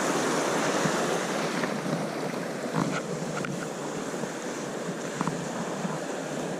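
Fast river water rushing steadily, with a few faint ticks.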